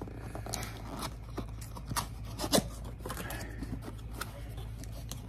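Cardboard box being handled and opened: scraping and rubbing against the cardboard with scattered small clicks, and one sharper knock about two and a half seconds in.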